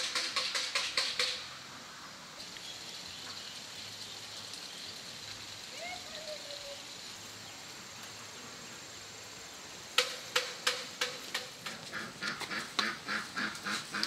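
Bird calls: a fast run of short, sharp calls at the start, then from about ten seconds in more runs of quick repeated calls, the first starting loud and fading away.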